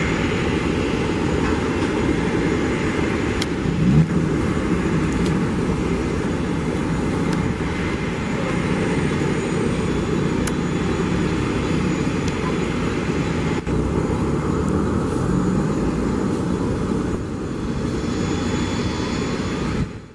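Airbus A320 airliner's jet engines running at taxi power as it taxis past, a steady low jet noise, with a brief louder bump about four seconds in.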